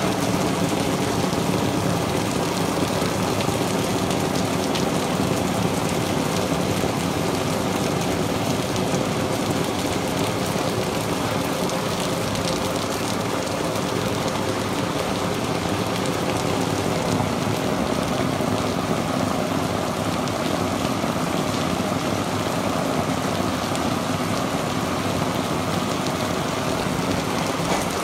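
Heavy rain pouring steadily onto wet paving, an even hiss of falling water.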